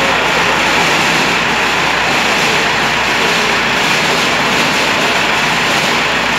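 Smoke arrestor's blower running with a steady, loud rushing noise that holds even throughout.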